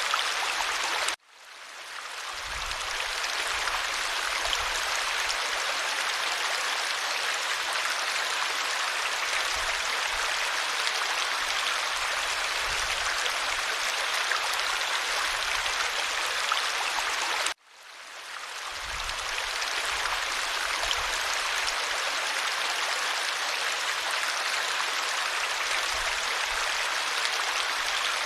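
Clear valley stream flowing with a steady rush of water. It cuts out abruptly twice, about a second in and again about seventeen seconds in, and fades back up over a couple of seconds each time.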